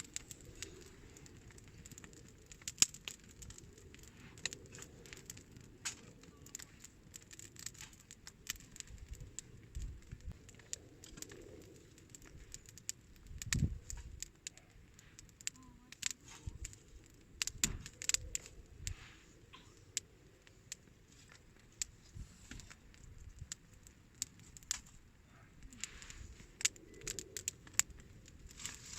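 Wood campfire crackling, with irregular sharp pops and snaps throughout, plus a few soft low thuds, the loudest about halfway through.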